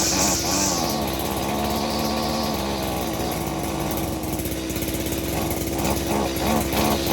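Small two-stroke engine of a string trimmer running steadily after being started for the first time in a long while.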